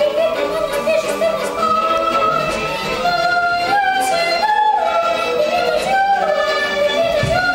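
A boy singing a melodic operetta song with long held notes that step up and down in pitch, over instrumental accompaniment.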